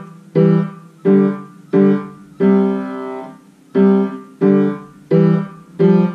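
Kawai piano played with both hands: chords in the middle register struck about every two-thirds of a second, each dying away, with one chord held longer near the middle.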